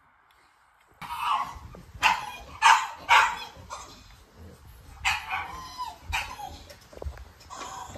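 Newborn exotic bully puppies crying in a run of short, high squeals, starting about a second in.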